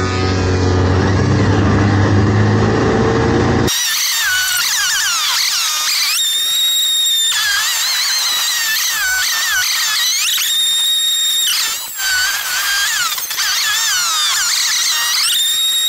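Snowmobile engine running steadily under way. About three and a half seconds in it cuts off abruptly to edited-in music, with high sliding, warbling tones and a held high note that returns every few seconds.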